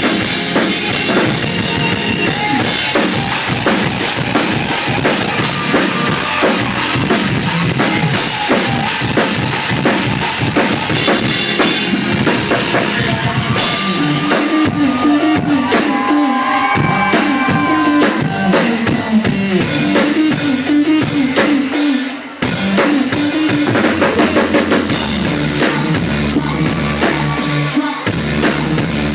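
A rock drummer's live drum solo on a full kit: dense, fast hits on bass drum, snare, toms and cymbals, with a brief sudden break about two-thirds of the way through.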